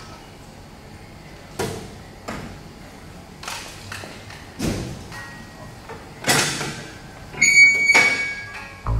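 Metal clanks and knocks as steel mould plates are handled at a hydraulic molding press: about five separate strikes, each ringing briefly. Music comes in near the end.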